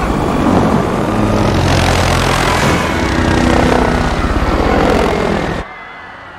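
Helicopter rotor chopping and engine running loud and close during a struggle in its cabin. The sound cuts off suddenly about five and a half seconds in, leaving a much quieter steady rumble.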